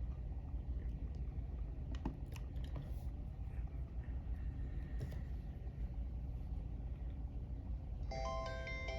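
Low steady background rumble with a few faint clicks. About eight seconds in, an LG VX6000 cell phone starts playing a polyphonic ringtone through its speaker: a quick melody of bright, chime-like notes.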